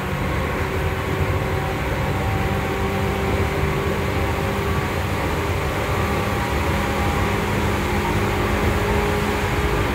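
Seibu 2000 series electric commuter train running, heard from inside the motor car: a steady rumble of wheels on rail with a few held motor tones over it, the level creeping up slightly.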